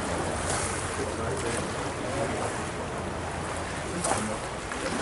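Boat motor running steadily with a low hum, under a constant rush of water and wind noise on the microphone.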